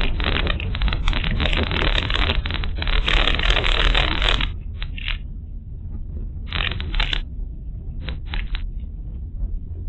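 Car driving slowly over a rough unpaved dirt road, heard through the dashcam mic inside the cabin: a steady low rumble, with a long stretch of gravel crunching and scraping under the tyres in the first half and a few short crunches later.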